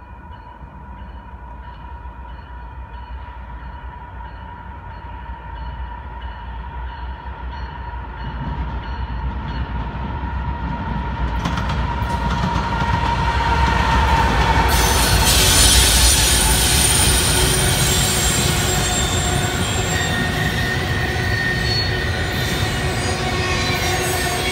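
Norfolk Southern freight train led by a GE ES44AC diesel locomotive approaching and passing close by. The locomotive's rumble grows louder through the first half. Then comes the steady rush of steel wheels on rail, with high wheel squeal as the double-stack intermodal cars roll past.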